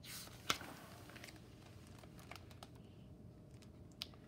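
A page of a hardcover picture book being turned: a brief paper swish with a sharp tap about half a second in, light handling clicks, and another sharp tap near the end.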